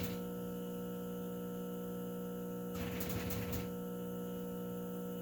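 Cockatiel making its rapid, machine-gun-like rattling chatter, a fast series of clicks lasting about a second near the middle, over a steady electrical hum.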